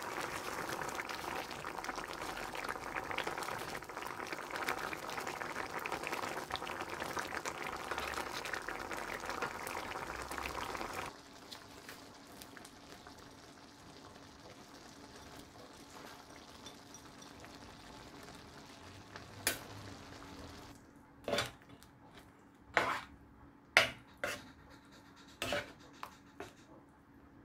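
Thick curry boiling hard in a frying pan, a dense bubbling and popping that cuts off abruptly about eleven seconds in, leaving a faint steady hum. Later a spatula stirring the curry knocks sharply against the pan several times.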